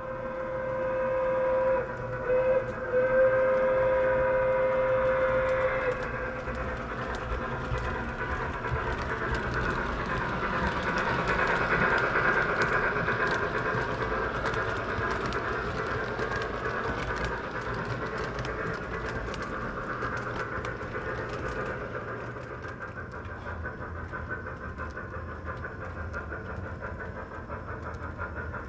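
O gauge Lionel Southern Pacific Consolidation model steam locomotive: its sound system blows the whistle, broken twice in the first few seconds, for about six seconds. Then the train runs past with its chuffing and the wheels clicking over the three-rail track, loudest about twelve seconds in and slowly fading.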